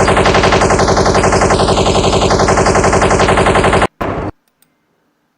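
Machine-gun sound effect: a long run of rapid, evenly spaced automatic fire that cuts off suddenly a little under four seconds in, followed by a brief second burst.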